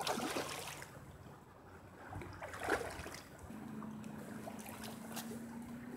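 A big hooked carp thrashing and splashing at the water's surface close to the bank as it is played toward the net, with splashes at the start and again a little under halfway through.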